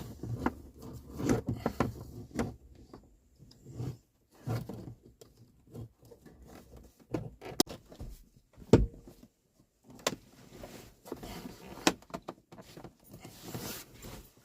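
Irregular knocks, clicks and rustling from handling, with one sharp knock about nine seconds in and short quiet gaps between.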